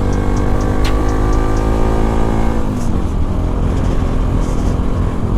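Modified Bajaj Pulsar NS200's single-cylinder engine running under way, its pitch falling steadily for about two and a half seconds as the bike slows, then dropping lower and holding steady.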